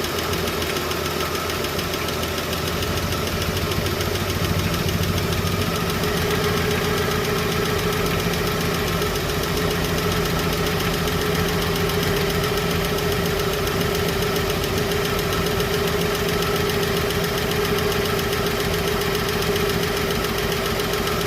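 Chevrolet 235 Blue Flame straight-six idling with a steady rapid valvetrain tick in time with the engine: a bad or loose lifter that is being adjusted with the engine running. It gets slightly louder about four seconds in.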